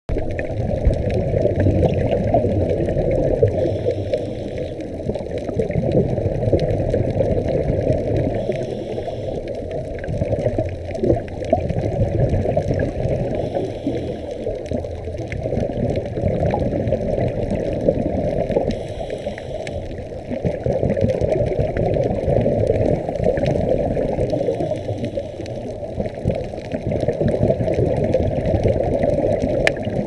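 Underwater scuba breathing heard through a waterproof camera housing: the regulator's breaths and the gurgling rush of exhaled bubbles, swelling and easing in slow cycles about every five seconds.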